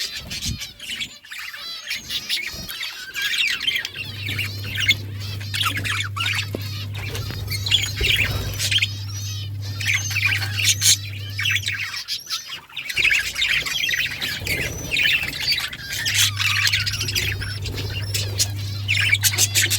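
A flock of budgerigars chattering: dense, overlapping chirps, warbles and harsh squawks. A low steady hum comes in about four seconds in, drops out around twelve seconds and returns near sixteen seconds.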